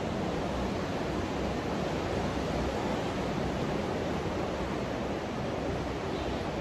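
Ocean surf breaking on a beach: a steady, even rush of waves with no single crash standing out.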